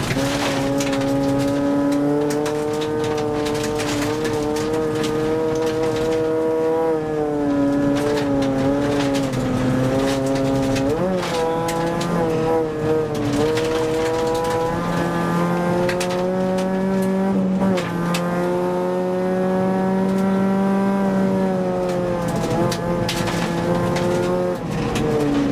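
Rally car engine heard from inside the cabin, revving hard at speed on gravel, its pitch climbing and dropping back several times with gear changes and lifts off the throttle. Gravel ticks and rattles against the car throughout.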